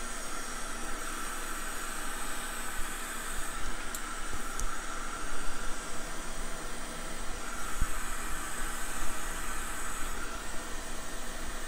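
A steady hiss of blowing air, with a couple of faint ticks about four seconds in.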